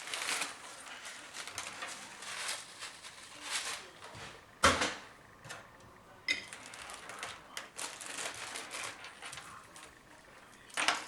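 Hands working on a PC case: irregular rustling and small clicks of metal and plastic parts, with one sharp knock about halfway through.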